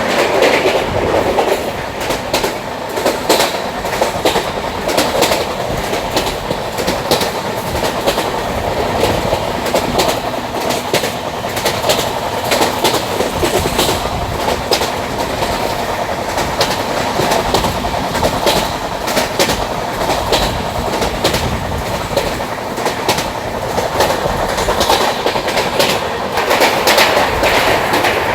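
Train running over the rails, a steady rumble with clickety-clack of wheels over rail joints throughout.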